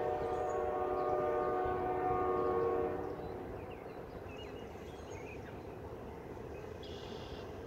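Diesel locomotive horn sounding one long chord that cuts off about three seconds in, followed by a steady low rumble.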